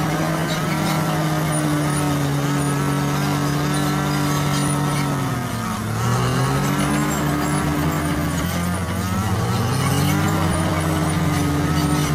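Bulldozer's diesel engine running hard, its pitch dropping about halfway through and picking back up, then sagging and rising again near the end.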